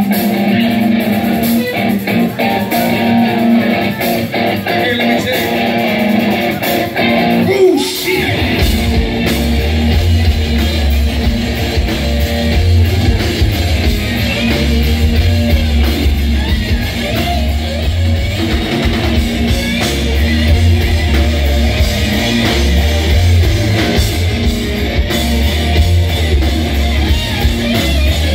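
Live rock band playing loud, led by electric guitar. A heavy, pulsing low end comes in about eight seconds in, and the full groove carries on from there.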